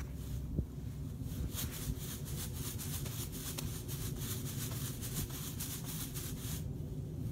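Plastic bag crinkling and rustling irregularly as it is rubbed over a horse, starting about a second in and stopping shortly before the end, over a steady wind rumble on the microphone. A single knock sounds just after the start.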